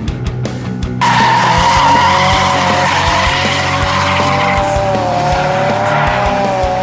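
Drift car sliding sideways through a corner: tyres squealing in a long wavering tone over the engine held at high revs. The sound jumps suddenly louder about a second in.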